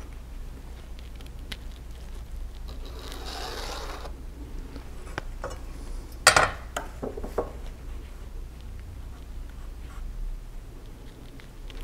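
A pencil scraping across paper as a line is drawn along the steel blade of a combination square, then the square knocked down onto the board about six seconds in, followed by a few lighter clicks as it is shifted into place.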